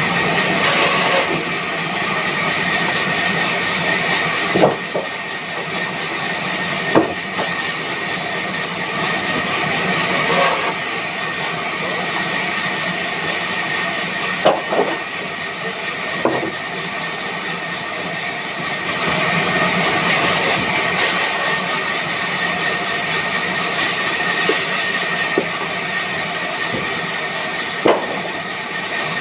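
Band sawmill running steadily, with a constant high whine and a few sharp knocks now and then.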